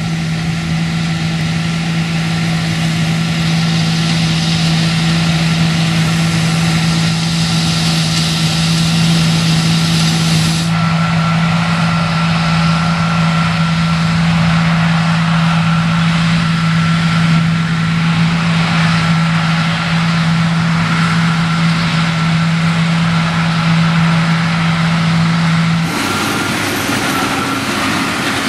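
Combine harvester running while it cuts and unloads wheat: a loud, steady machinery hum of constant pitch under a wash of threshing noise. The sound changes abruptly about 11 s in. Near the end it gives way to a tractor pulling a large square baler.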